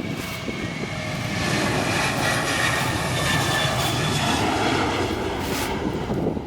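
Passenger airliner's engines passing close by. The noise swells over the first couple of seconds, holds loud with a few whining tones that sink slightly in pitch, then eases toward the end.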